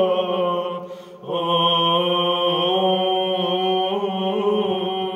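Orthodox liturgical chant in Romanian: a voice holds the drawn-out final notes of the hymn, breaks off briefly about a second in, then sustains one long closing note.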